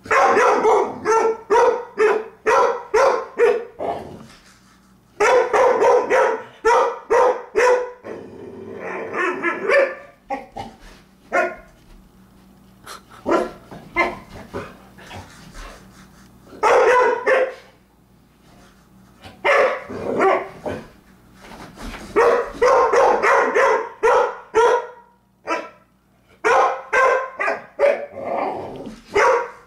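A dog barking at its ball toy in play, in rapid runs of short, sharp barks with brief pauses between the runs.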